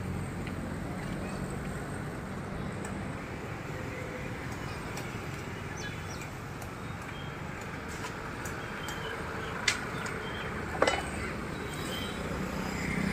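Steady outdoor background noise with faint, scattered high bird chirps from the tree canopy, and two sharp clicks about ten and eleven seconds in.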